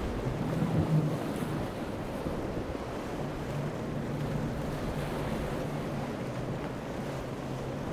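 Wind on the microphone and the rush of surf and a boat's spray, with the low steady drone of a center-console's five outboard motors running at speed.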